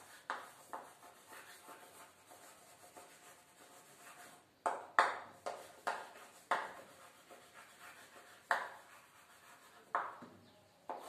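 Chalk writing on a blackboard: a string of irregular sharp taps and short scratching strokes as letters are drawn, the loudest about five seconds in.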